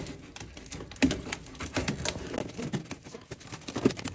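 Flexible aluminium foil dryer vent duct crinkling and crackling with quick, irregular clicks as hands work it onto the dryer's exhaust outlet.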